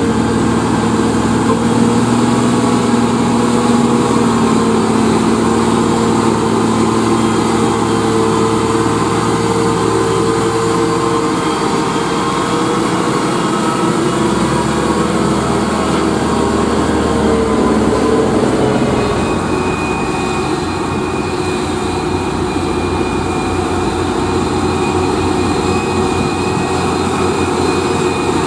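UD Quester truck's GH8E diesel engine running under load as the loaded truck drives past. About two-thirds of the way through its note drops, then the engine of another GH8E-powered Quester tractor unit comes in, with a steady high whine over it.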